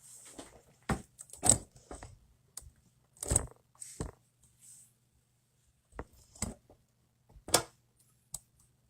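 Small tools and phone parts handled on a workbench during a phone teardown: irregular clicks, taps and short scrapes, about ten in all, the loudest a little after one second, at about three seconds and near the end.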